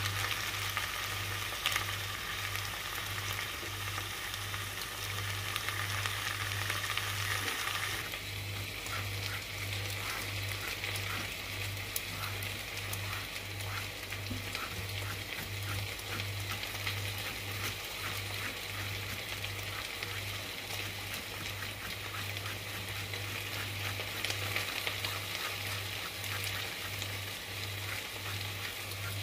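Diced potatoes, carrots and onions sizzling in oil in a steel pot, a steady frying hiss, with a low hum pulsing on and off a bit more than once a second. About eight seconds in the sizzle eases and light, quick ticks come through it.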